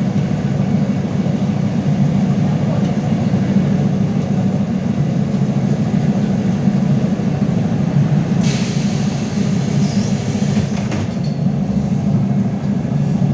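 LiAZ-5280 trolleybus under way, heard from inside: a steady low running rumble from its DK-213 traction motor, wheels and body. About eight seconds in, a burst of hiss lasts roughly two and a half seconds.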